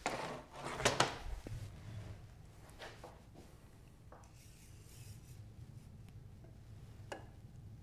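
Rubbing and scraping on the turned wooden banjo rim blank while its diameter is checked, loudest about a second in, then a few light clicks over a faint low steady hum.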